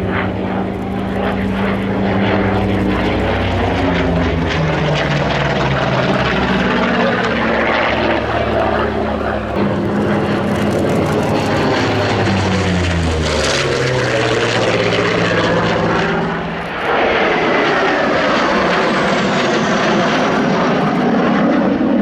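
Piston-engined propeller airplane flying past, its engine note sliding down in pitch as it goes by. About 17 s in the sound briefly dips and then turns rougher and noisier.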